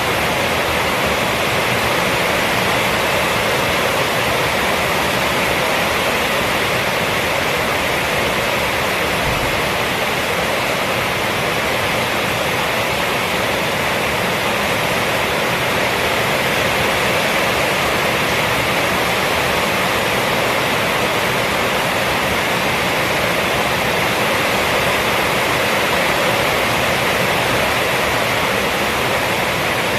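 Rainstorm rain falling steadily on a roof, a dense, even hiss that holds level throughout with no breaks.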